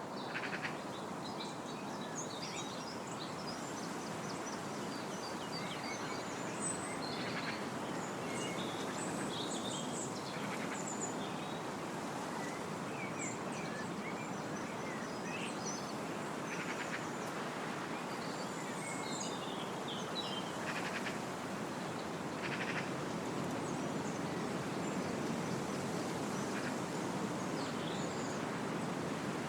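Wind blowing steadily through trees, with small birds chirping and singing in short, varied phrases throughout.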